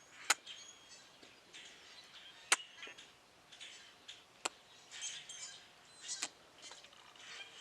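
Faint bird chirps outdoors, punctuated by four sharp clicks spaced roughly two seconds apart.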